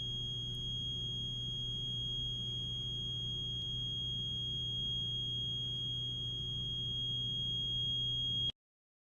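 A steady high-pitched electronic tone over a low hum, unchanging in pitch, that cuts off suddenly near the end, leaving dead silence.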